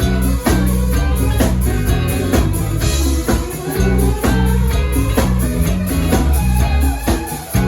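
Band music: a drum kit keeps a steady beat of about two hits a second under sustained bass notes and guitar.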